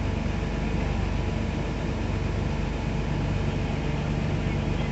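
A nearby engine idling steadily, its low even firing pulse unchanged throughout, over a steady hiss of wind.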